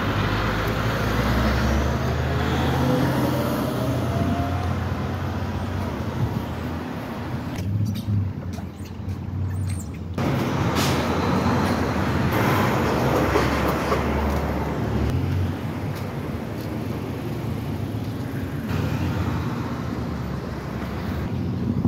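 Busy street traffic: vehicle engines running and passing with a steady low rumble, and one engine rising in pitch as it speeds up in the first few seconds.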